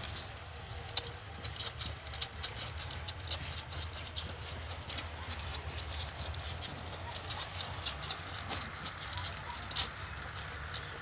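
Lamb sucking milk from a plastic feeding bottle: rapid, irregular wet smacking clicks at the teat, several a second.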